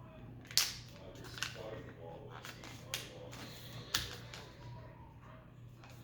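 A sheet of paper being folded in half and creased by hand, with four sharp crisp snaps spread over a few seconds.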